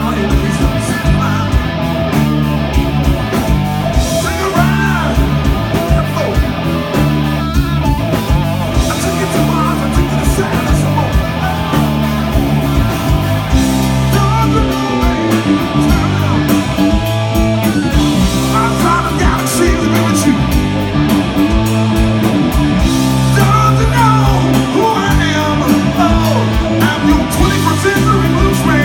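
Live blues-rock band playing loud and steady: electric guitar over bass guitar and a drum kit.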